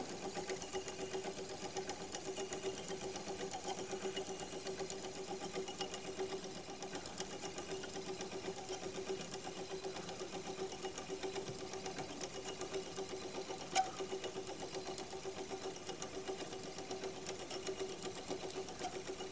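Antique clockwork roasting jack running, its wound-up gear train giving a steady mechanical whir with fine, rapid ticking. One sharper click comes about fourteen seconds in.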